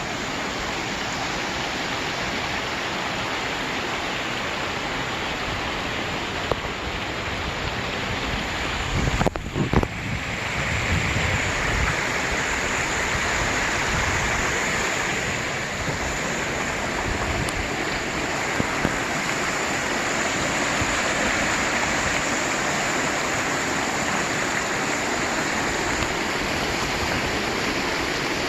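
Steady rush of a mountain valley stream, water flowing over rocks. There are a few knocks about nine to ten seconds in, after which the rush turns brighter and hissier.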